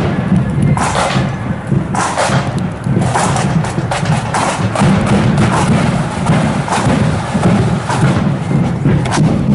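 Marching flute band's drums playing a steady marching beat, the big bass drum loudest, with sharp drum strikes cutting through about once a second.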